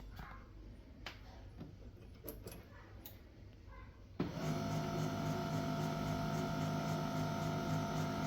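A few light clicks, then about halfway through the HP LaserJet M1136 MFP's motor starts suddenly and runs on with a steady mechanical hum.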